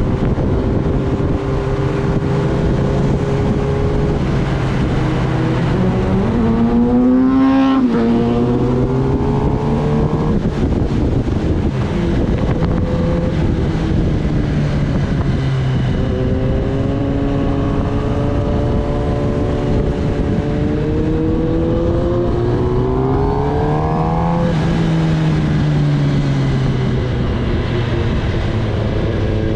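Kawasaki Ninja ZX-10R's inline-four engine under way, with wind rushing over the microphone. The revs climb and drop sharply twice, about a quarter of the way in and again about four-fifths of the way through, as the bike accelerates and shifts up.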